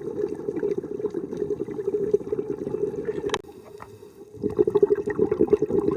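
Muffled bubbling and gurgling of a scuba diver's exhaled air, heard through an underwater camera housing. It breaks off for about a second just past halfway, with a single click, then starts again.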